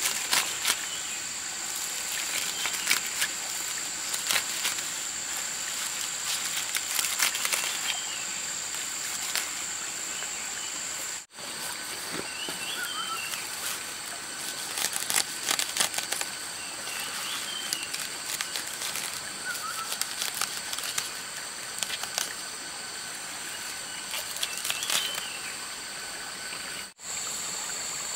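Outdoor ambience: a steady high-pitched insect drone with a few short chirps every few seconds, over scattered bouts of rustling and clicking. The sound cuts out briefly twice.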